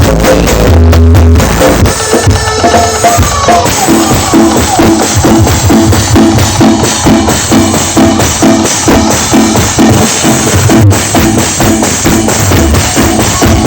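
Loud dance music with a steady drum beat and heavy bass, played through a carnival sound system's speaker stacks.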